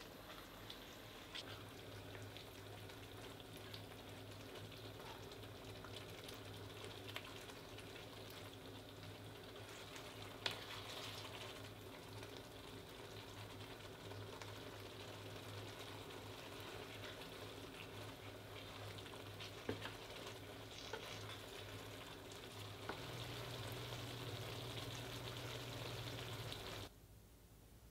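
Spaghetti in tomato sauce sizzling softly in a stainless steel frying pan, stirred and tossed with a wooden spatula, with occasional light knocks against the pan over a steady low hum. The sound cuts off suddenly near the end.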